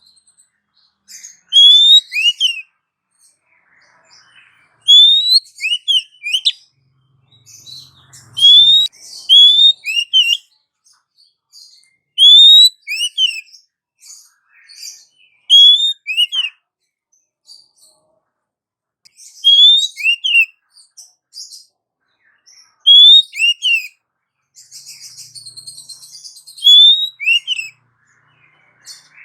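Female oriental magpie-robin calling to a male. She repeats a short whistled phrase, one rising note followed by falling notes, every three to four seconds. Near the end there is a harsh, scratchy chatter.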